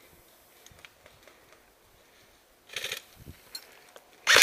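Mostly quiet with faint rustles and clicks. Nearly three seconds in comes a short, rapid burst of airsoft gun fire, and right at the end a much louder rapid-fire burst from an airsoft rifle begins.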